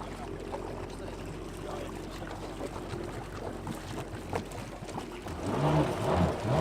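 Personal watercraft (jet ski) engine running on the water, with the rush and splash of water around the hull; the engine gets louder and wavers in pitch near the end.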